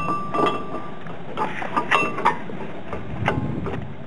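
Irregular metal clinks and knocks, some briefly ringing, as steel brake parts (caliper bracket and bolts) are handled and aligned onto the front hub and rotor.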